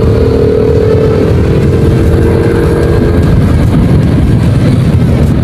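Honda Wave 110i's small single-cylinder four-stroke engine running on the move, under a dense, steady low rumble, with its air filter intake loud. A faint steady tone fades out about three seconds in.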